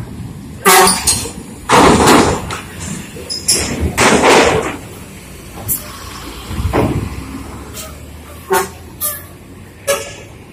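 Bus horns sounding in a run of short, loud blasts over the low rumble of bus engines, the loudest blasts in the first half and a few shorter ones near the end.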